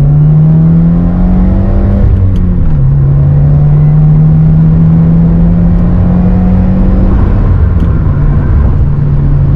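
Subaru WRX's turbocharged flat-four accelerating through the gears, heard from inside the cabin. The revs climb, fall at an upshift about two seconds in, climb again more slowly, and fall at a second upshift near the end.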